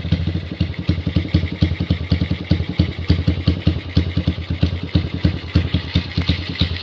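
Honda GL motorcycle's single-cylinder four-stroke engine idling with an uneven beat, some firing pulses stronger than others. This is the coughing at idle that the owner says does not come from the carburettor.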